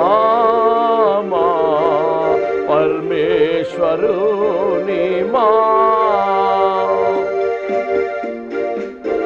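A man sings a Christian devotional song to his own electronic keyboard accompaniment. The voice wavers and bends through ornamented phrases over steady held keyboard chords, and falls silent for a couple of seconds near the end while the keyboard sustains.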